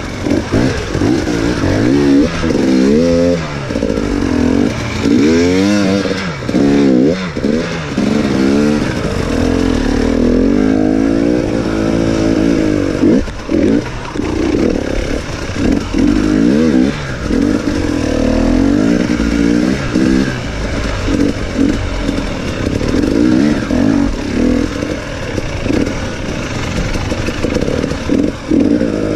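Enduro dirt bike engine being ridden over rough, rocky ground, its pitch climbing and dropping again and again as the throttle is opened and closed, most sharply in the first few seconds.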